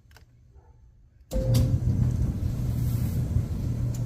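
Maytag dryer starting up about a second in: a short beep, then the drive motor and tumbling drum start running with a steady low hum and rumble.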